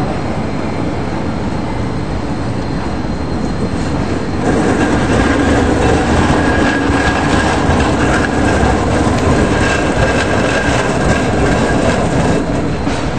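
Street trams running on rails, the rolling rumble growing louder about four and a half seconds in as a low-floor tram passes close. Over the rumble are a thin steady high squeal and many short clicks of wheels over track joints and switches.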